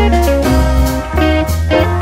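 Instrumental background music with guitar, its notes changing every fraction of a second over a steady bass line.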